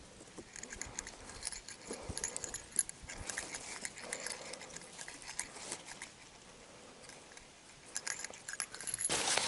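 Hands untying a thin cord on a bear-bag line: faint rustling with scattered small clicks.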